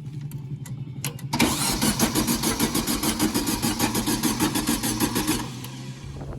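Volkswagen Beetle's air-cooled flat-four being turned over by the starter for about four seconds, in an even rhythm of about five pulses a second, without catching. It cranks but does not fire because the coil is not plugged in, so there is no spark.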